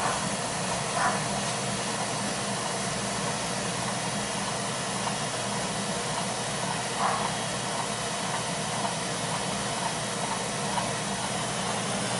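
Beckett oil burner running steadily just after firing up: an even rush of the blower and flame over a low motor hum. The technicians suspect a bad motor-to-pump coupling or a loose fan blade behind its vibration.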